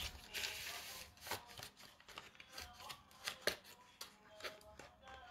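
Face sheet-mask packets being handled: rustling and crinkling with scattered light taps and clicks, a longer rustle in the first second.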